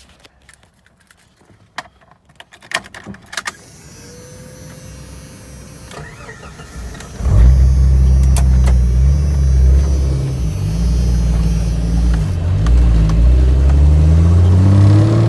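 A few clicks and knocks, then a Jeep Cherokee XJ's engine cranks and starts about seven seconds in and keeps running, its pitch rising near the end as it is revved or pulls away.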